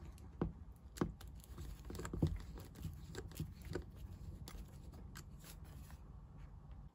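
A small screwdriver working the tiny cap screws on a Vetus anti-siphon valve, giving scattered faint clicks and scrapes over light rustling.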